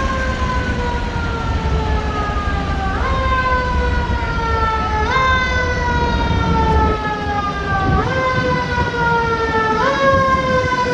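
Siren of an approaching KME Predator fire engine on an emergency response. Its pitch jumps up sharply and then slowly falls, again every two to three seconds, over a low traffic rumble.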